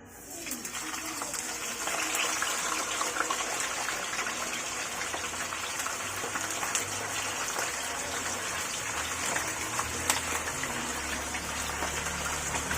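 Barbecue-marinated pork belly frying in hot oil, sizzling and spattering with dense crackles. It starts abruptly, as the meat goes into the pan.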